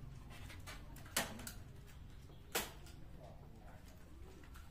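Two sharp clicks about a second and a half apart, with fainter ticks around them: tool knocks and clacks from hand work on a fabric wall backdrop.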